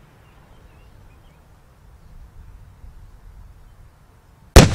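Quiet outdoor hush with a few faint bird chirps, then, about four and a half seconds in, one sudden, very loud blast of an explosive charge detonating, followed by a rumble that slowly fades.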